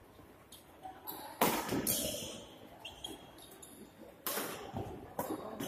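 Badminton rackets striking the shuttlecock in a rally: two loud hits about three seconds apart, with lighter hits and taps between, echoing in the hall.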